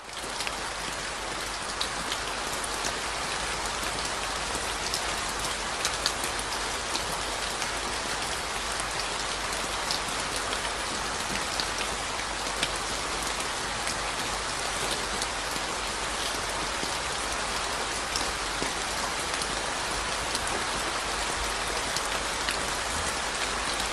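Steady rain falling on wet, muddy ground and puddles, a constant hiss dotted with scattered sharper ticks of single drops.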